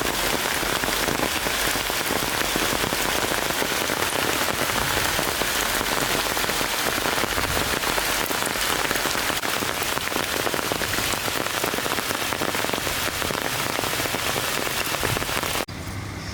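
Heavy rain falling steadily, a dense hiss of many drops pattering on surfaces, which cuts off suddenly near the end.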